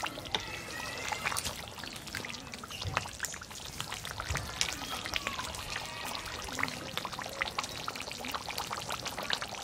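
A pot of beef curry bubbling and sizzling as it cooks down in its water, a steady run of small crackles and pops.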